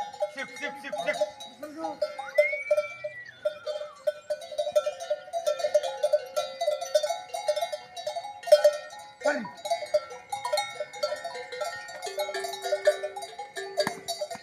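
Many livestock bells clanking irregularly and continuously as bell-wearing animals move about, with a short falling animal call about nine seconds in.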